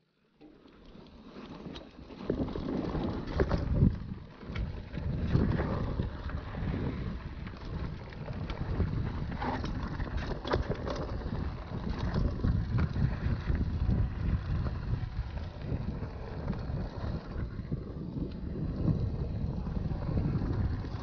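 Mountain bike rolling down a rough dirt trail: tyres rumbling over rocks and roots, with scattered clicks and rattles from the bike and wind buffeting the microphone. The sound starts almost silent and builds up over the first couple of seconds, then runs on unevenly.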